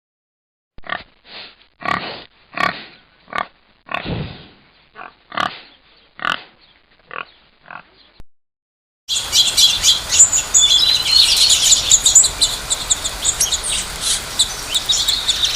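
A run of a dozen or so short animal calls, spaced about half a second apart. About nine seconds in, this cuts to a dense, continuous chorus of high-pitched bird chirping.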